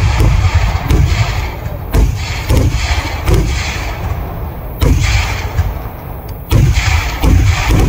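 Kerala vedikkettu fireworks barrage: heavy, deep explosions going off one after another with no break, mixed with sharper cracks. Especially big blasts come about two seconds in, near the five-second mark and about a second before the end.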